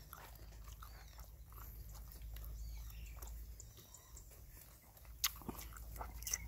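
Faint chewing and mouth sounds of a man eating meat off the bone with his fingers, with a few sharp clicks near the end.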